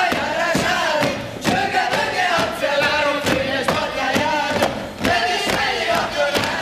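A group of folk dancers singing and shouting together in unison during a Hungarian jumping dance (ugrós), with their boots stamping and slapping on the stage floor about twice a second.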